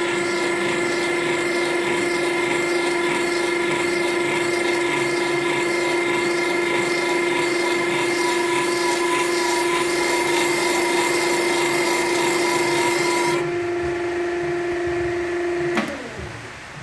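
Drill press running a multi-step spring seat cutter into a cast iron cylinder head: a steady motor whine with a rhythmic scraping cut as the spring seat base is cleaned up. About three seconds before the end the cutting noise drops away, then there is a click and the whine falls as the spindle spins down.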